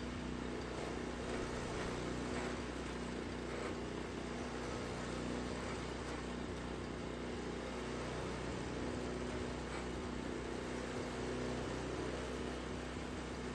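Troy-Bilt Super Tomahawk chipper shredder's 8 hp Briggs & Stratton I/C single-cylinder engine running steadily at working speed while branches are fed in and shredded. The engine runs evenly on a replacement carburetor whose main jet has been opened about a turn and a half.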